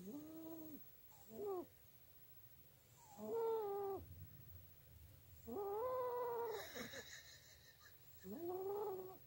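Long-haired cat snoring in its sleep: five squeaky, pitched snores, one with each breath, each rising and then falling in pitch, about two to three seconds apart.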